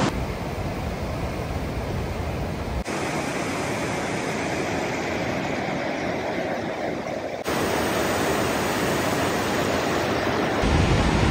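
Zambezi River rapids just above Victoria Falls: fast white water rushing steadily over rocks. The sound shifts abruptly twice, about 3 and 7.5 seconds in, and a deeper rumble comes in near the end.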